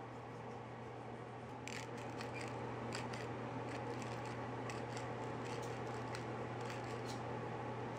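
Irregular crisp clicks and ticks, starting about two seconds in and going on in an uneven run, over a steady low hum.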